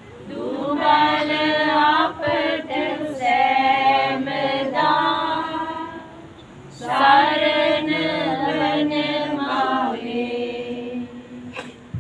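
A group of voices singing a hymn together, in two long phrases with held notes and a short pause between them.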